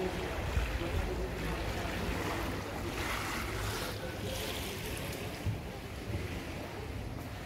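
Steady rush of sea surf mixed with wind buffeting the microphone, swelling briefly about three and four and a half seconds in.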